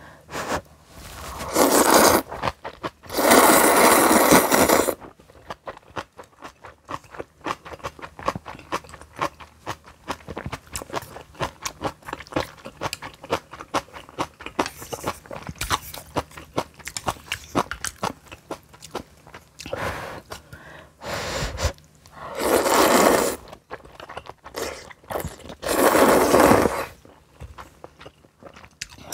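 Close-miked eating: steady chewing with many small crunches, as of fresh garlic kimchi, broken by four loud slurps of one to two seconds each, two in the first few seconds and two near the end.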